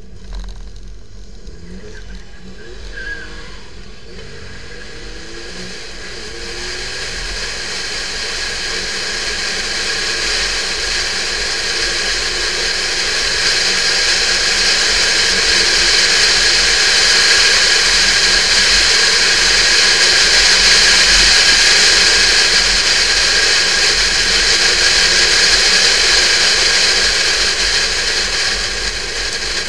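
Porsche 911 type 996 under way on an open road, its water-cooled flat-six running under a steady rush of wind and road noise. The rush builds gradually over the first half as the car gathers speed, then eases slightly near the end.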